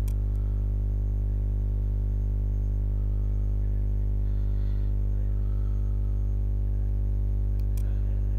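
Steady electrical hum: a strong low buzz with a stack of even overtones above it, unchanging throughout. Two short clicks cut through it, one at the start and one near the end.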